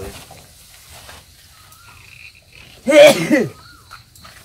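A man coughs once, loud and harsh, about three seconds in.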